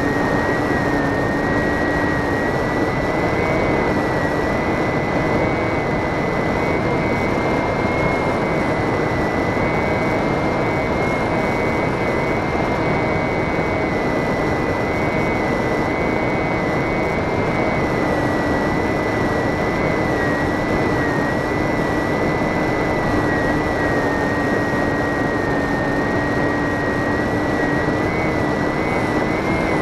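Model airplane's motor and propeller running at a steady cruise: a high whine that drifts slightly in pitch and a lower hum over a constant rush of air.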